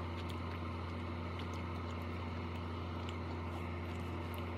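A steady low hum, with a few faint mouth clicks from someone chewing a mouthful of food.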